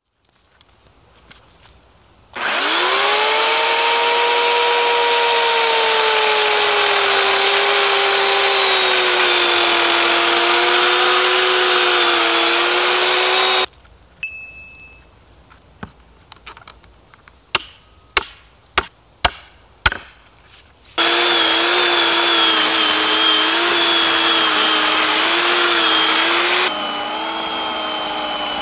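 WORX 15-amp corded electric chainsaw running and cutting through a log: the motor whines up to speed and its pitch slowly sags as the chain bites into the wood. It stops, a run of sharp knocks follows, and then it starts and cuts again.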